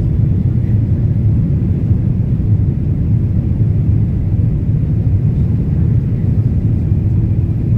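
Steady low rumble of an airliner's engines and airflow, heard inside the passenger cabin.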